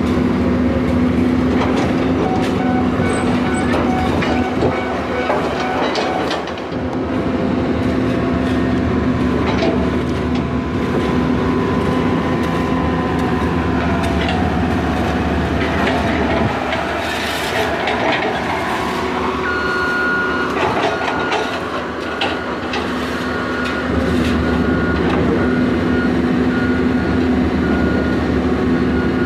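Diesel engines of a Caterpillar 320D excavator and a road roller running steadily under load, with scattered knocks and scrapes of the bucket and tools on fresh asphalt. A short high beep repeats at even spacing in the last third.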